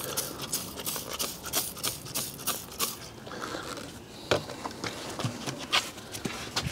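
Hand spray bottle squirting diluted acid wheel cleaner onto dirty wheels: quick repeated short sprays, about five a second for the first few seconds, then a few spaced-out squirts.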